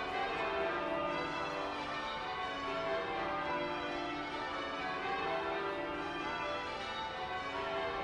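Church bells change ringing: a peal of several bells struck one after another in a steady, continuous run of overlapping ringing tones.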